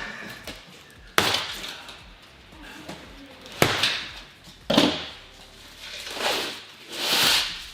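A cardboard shipping box being forced open by hand: three sharp cracks or snaps, about a second in, at three and a half seconds and just before five seconds, then two longer scraping sounds near the end.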